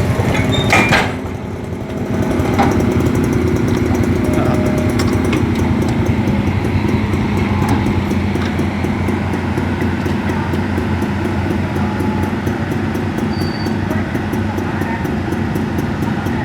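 Excavator-mounted hydraulic breaker at work on asphalt: a steady, rapid mechanical rattle over the diesel engine, briefly dipping about a second in.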